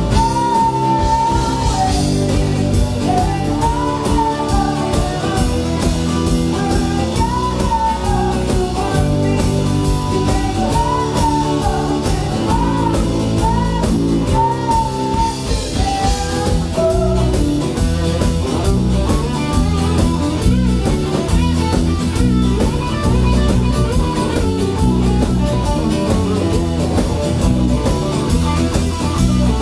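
Live band playing: two electric guitars, bass guitar and drum kit, with a woman singing a bending melody through roughly the first half. After that the band plays on without the vocal line.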